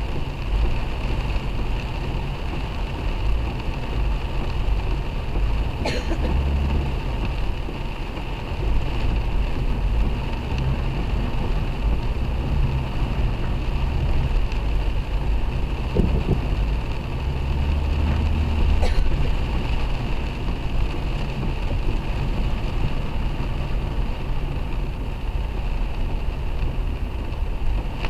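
Heavy rain and wind on a moving car, heard from inside the cabin: a steady rush of rain on the roof and windshield over tyre hiss on the flooded road, with a low rumble that swells in gusts. A few sharp ticks come through.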